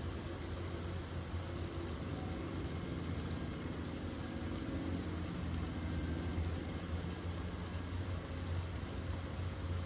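Steady outdoor background noise: a constant low rumble under a faint hiss, with no distinct events.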